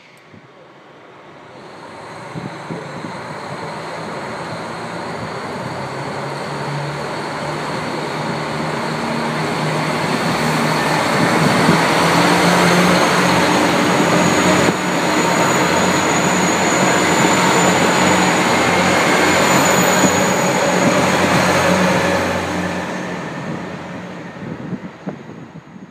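Limited express train pulling out of the platform and running past close by. Its running noise builds over about ten seconds, holds for about ten more, then fades as the last cars go by.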